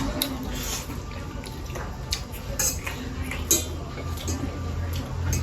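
Eating noodles from a bowl: utensils clink and scrape against the dish among scattered short wet mouth sounds, over a steady low hum.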